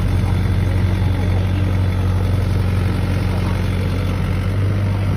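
Engine running steadily at idle with a low, even hum.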